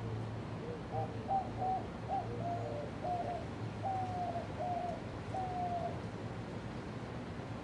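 Low steady hum of a running ceiling fan, with a run of short whistling notes, about two or three a second, from about a second in until near six seconds.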